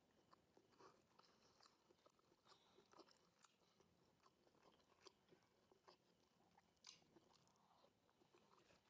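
Faint close-up chewing of a mouthful of lettuce, with small irregular crunches and mouth clicks.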